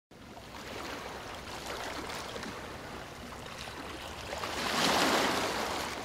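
Ocean surf: a steady rush of breaking water with fine fizzing, one wave swelling to its loudest about five seconds in and then starting to fall away.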